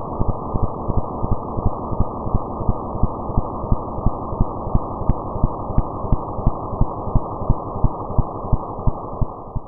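Outro soundtrack: a low, rumbling noise with a steady thumping pulse about three times a second, fading out near the end.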